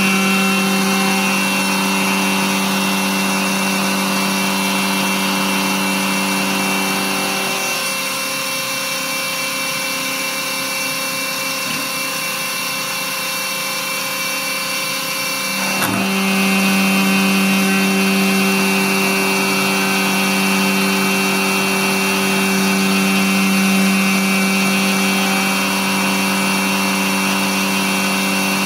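FABtotum milling spindle running steadily with a low hum under a high whine while a fine bit mills a copper-clad circuit board. About 8 seconds in the low hum drops away and the sound goes a little quieter; with a click at about 16 seconds it comes back.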